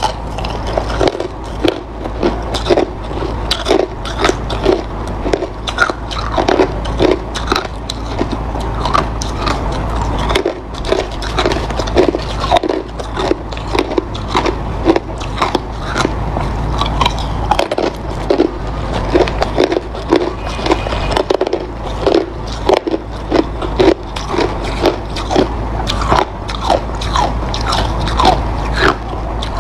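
Hard ice being bitten and chewed close to the microphone: a steady run of sharp, crackling crunches, a couple or more a second.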